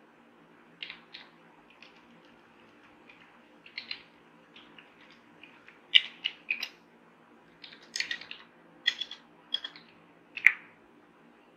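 Computer keyboard keys clicking in short, irregular clusters as code is typed, over a faint steady low hum.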